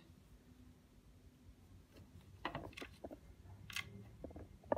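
Faint handling noises at a vintage sewing machine: a few irregular soft clicks and rustles of cloth being moved under the presser foot, with a sharper click a little before the end.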